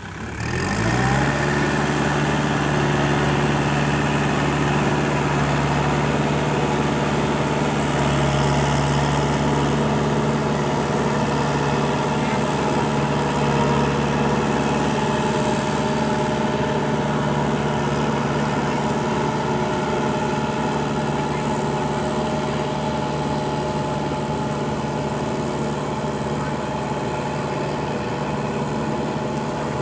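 Kubota L5018VN compact tractor's diesel engine running steadily under load, pulling a rotary tiller through flooded paddy mud.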